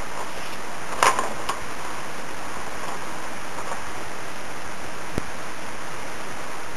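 Steady hiss of a webcam microphone, with a quick clatter of knocks and clicks about a second in as the camera is handled, and a single soft tap past the middle.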